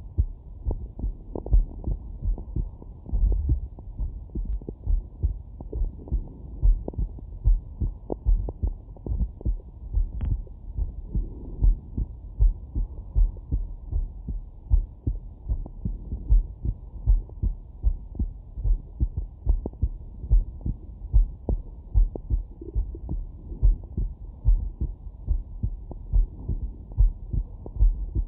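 A man's heartbeat picked up by a Stemoscope digital stethoscope: steady, regular lub-dub beats at a little more than one a second, muffled and low-pitched.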